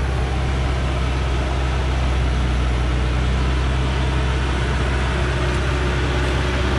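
Diesel engine of a heavily loaded Dongfeng logging truck running steadily as the truck crawls slowly along, with no change in revs.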